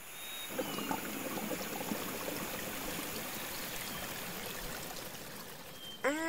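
Cartoon sound effect of a fire truck's water jet pouring into a stone fountain basin: a steady splashing hiss. A short pitched sound cuts in near the end.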